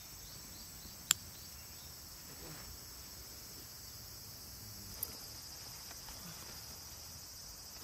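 Steady high-pitched chorus of summer insects, with a sharp click about a second in and a fainter one about five seconds in.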